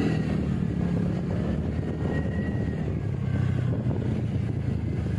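Motorcycle engine running steadily as it is ridden along a road.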